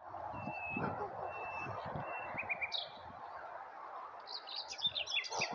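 Small songbirds chirping: short whistled notes, then a quick run of high twitters near the end, over steady outdoor background noise with scattered low rumbles.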